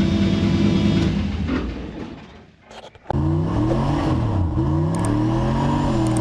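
LS-swapped 1963 Ford Falcon's V8 idling steadily, fading out about two seconds in. A second later, heard from inside the car, the engine is at full throttle on a drag strip, revving up through the gears with its pitch climbing and falling back at each shift.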